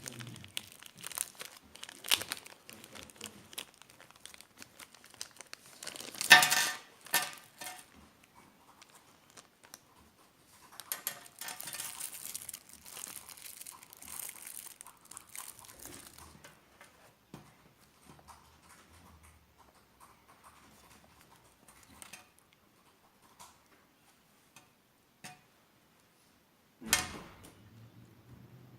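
Product packaging being handled and opened: plastic and paper crinkling and tearing, with scattered clicks and knocks. A loud burst of crinkling comes about six seconds in, a longer stretch of rustling from about eleven to sixteen seconds in, and another short burst near the end.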